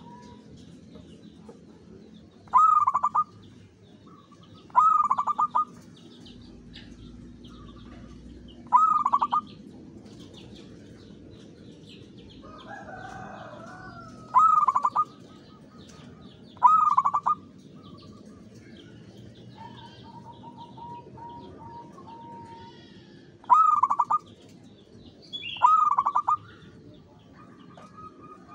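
Local-strain zebra dove (perkutut) cooing: seven short, loud calls a few seconds apart, each a quick run of notes. Faint chirps of other small birds sound in the background.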